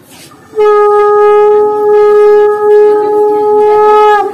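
Conch shell (shankha) blown in one long, steady note. It starts about half a second in, holds for about three and a half seconds and cuts off near the end.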